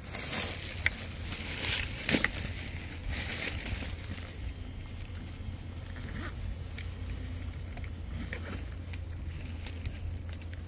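Dry brush and leaves rustling and twigs snapping as people push through scrub, loudest in the first few seconds with a couple of sharp cracks, then fainter scattered crackles.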